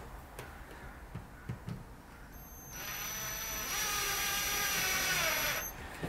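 Ryobi cordless drill-driver driving a screw into a light-switch cover plate: a few light taps, then the motor runs steadily with a high whine for about three seconds from a little under halfway in, stopping shortly before the end.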